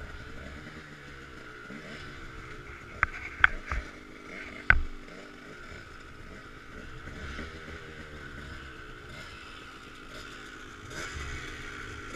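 Dirt bike engines idling and blipping, the pitch drifting up and down, with a few sharp loud clicks about three to five seconds in. The engine sound swells slightly near the end as another dirt bike pulls up close.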